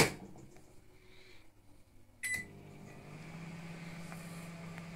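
LG MH-6346PQM microwave oven: the door shuts with a sharp click, the control panel beeps once about two seconds in, and the oven then starts running with a steady hum. It is now working again after its high-voltage diode, high-voltage capacitor and fuse were replaced.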